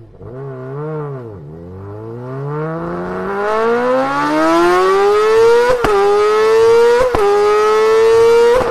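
Honda CBR1000RR-R Fireblade SP inline-four superbike engine through an aftermarket-style exhaust: a short throttle blip, then hard acceleration with the revs climbing high. Three quick upshifts follow, about six, seven and nearly nine seconds in, each a sharp crack with a small dip in pitch before the revs rise again.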